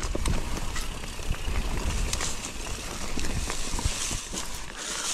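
Mountain bike riding over a dirt trail: tyres on loose ground and the bike rattling in many small clicks over bumps, with wind rumbling on the microphone.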